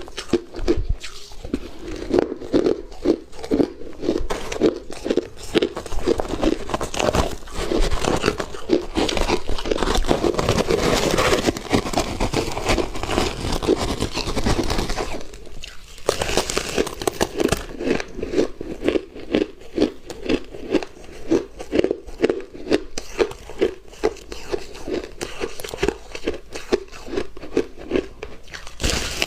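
A person chewing mouthfuls of crunchy refrozen shaved ice: a close, steady run of crunches, several a second, with a short pause about halfway through.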